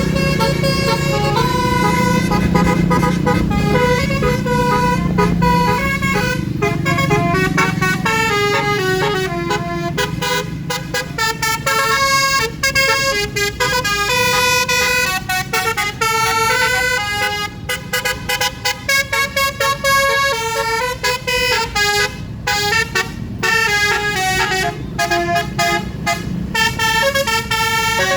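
Musical 'telolet' bus horn, a multi-trumpet basuri horn, playing a quick tune of stepped notes that keeps changing pitch. A low rumble sits under the first several seconds.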